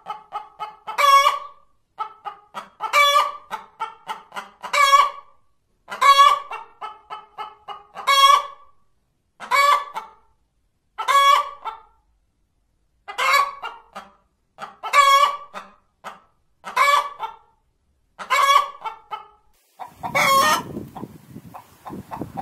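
A hen cackling: runs of short clucks building to one loud, drawn-out squawk, repeated about every two seconds, the pattern of the egg-laying cackle. Near the end a steady outdoor background with faint, fast clucking comes in.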